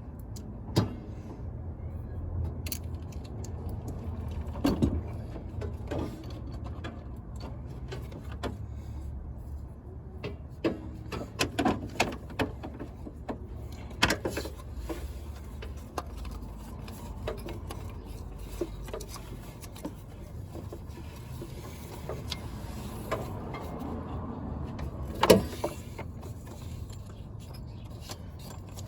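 Scattered metallic clicks, clanks and knocks of tools and parts being handled, over a steady low hum.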